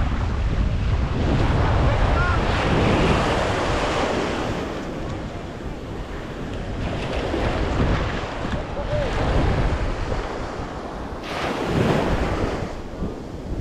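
Wind buffeting the microphone over the wash of water, rising and falling in gusts with a heavy low rumble.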